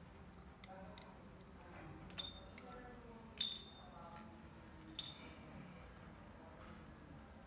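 Small metal clinks from a Magnehelic pressure gauge and its mounting screws being handled: three sharp, ringing clinks, the loudest about three and a half seconds in.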